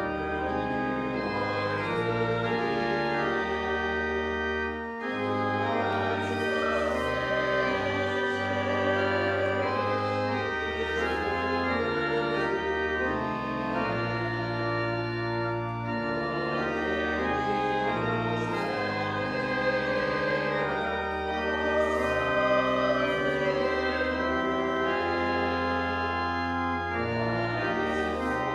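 Church organ playing a slow hymn in held chords over a moving bass line.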